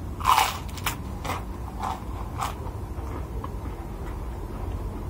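Close-up eating sounds: a person taking a mouthful of rice by hand, with one sharp smack or crunch about a third of a second in and several shorter chewing clicks over the next two seconds, over a steady low hum.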